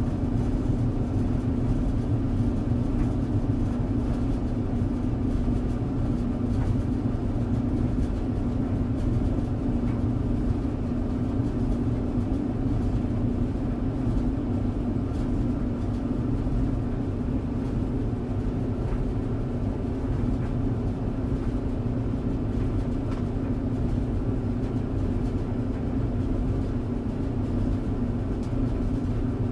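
Tumble dryer running, a steady even hum over a low rumble.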